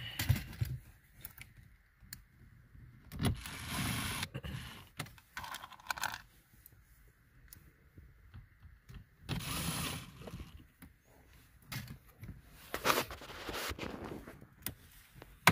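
Hand-tool and plastic handling noises while a car's dash trim is put back: scattered clicks, scrapes and rattles from a nut driver and the Chevy Cruze's plastic dashboard panels, with a few louder scraping bursts.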